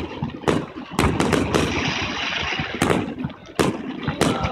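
Aerial fireworks shells bursting overhead: about seven sharp bangs in irregular succession, with crackling in between.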